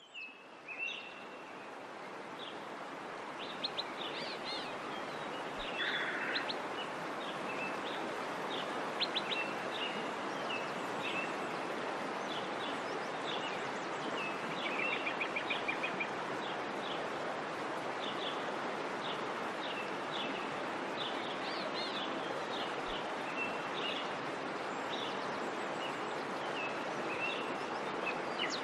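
Small birds chirping repeatedly, short high calls scattered throughout, over a steady background hiss that fades in over the first few seconds.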